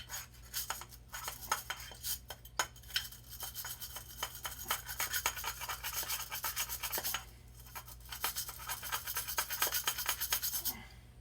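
Stiff wire brush scrubbed quickly back and forth over brass, several scratchy strokes a second, cleaning a soft-solder joint before it is re-soldered. The scrubbing pauses for about a second around seven seconds in, then resumes and stops near the end.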